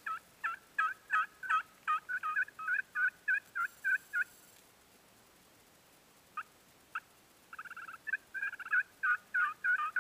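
Hand-held turkey call worked by a hunter, giving loud runs of hen-turkey yelps at about three notes a second. The first run stops about four seconds in. After two single notes and a short raspy stretch, the yelping starts again near the end.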